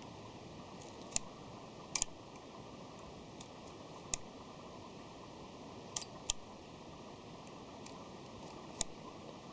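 Konica Autorex's full/half-frame switch being flipped back and forth, the film-plane mask inside the open back shifting with each flip. About six sharp clicks spread unevenly, two close together a little past halfway.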